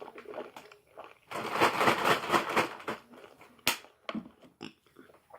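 Crinkly rustling of a Takis chip bag being handled for about two seconds, then a single sharp click.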